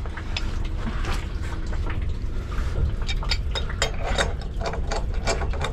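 Steel pipe wrenches clicking and scraping on a threaded valve and pipe fitting as it is tightened, with one wrench holding back. The sharp metallic clicks come thickly in the second half, over a steady low rumble.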